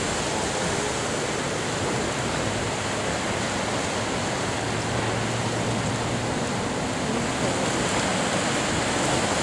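Ocean waves and surf washing, a steady unbroken rush of water noise.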